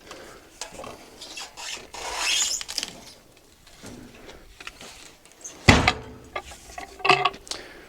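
A log being turned on the sawmill bed with a cant hook: scraping and rubbing, then a loud knock about six seconds in and a couple of ringing metal clanks near the end.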